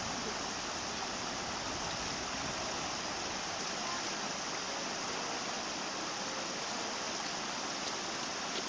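Steady rushing background noise, even throughout, with no distinct calls or knocks.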